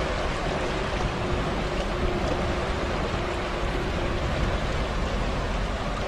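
Steady rushing of river water flowing through a stone causeway bridge: an even, unbroken noise with no pauses.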